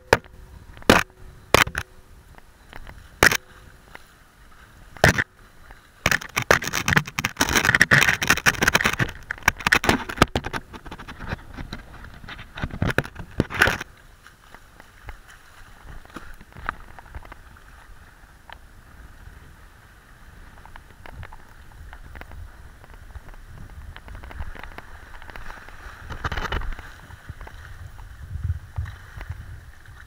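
Sharp knocks and a long spell of crackling scrapes as a kiteboard is carried in gloved hands close to the microphone into shallow water, then a steadier hiss of wind and water with one thump near the end.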